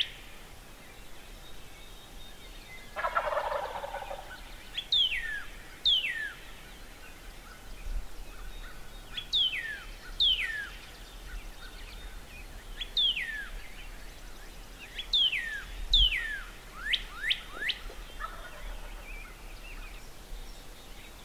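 Wild turkey gobbler gobbling about three seconds in, with a fainter gobble near the end. Between them a songbird whistles clear down-sliding notes in groups of two or three, finishing with a few quick up-sliding notes.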